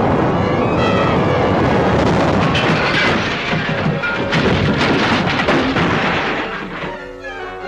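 Cartoon soundtrack: a loud, dense din of crashing and rumbling noise mixed with fast orchestral music. Near the end the noise dies away and sustained string notes take over.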